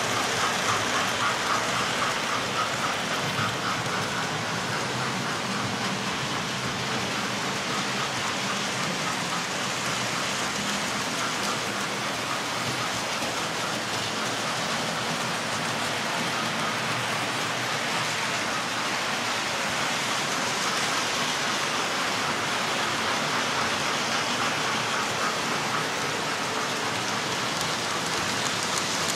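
Model trains running on a layout's track: a steady rushing hiss of wheels and motors, with a fast, light clicking of wheels over the rails that comes and goes.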